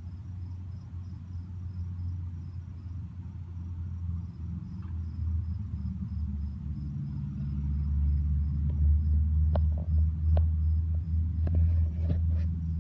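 Crickets chirping in a steady, evenly pulsed high trill, under a low rumble that swells louder about halfway through. A few sharp clicks near the end.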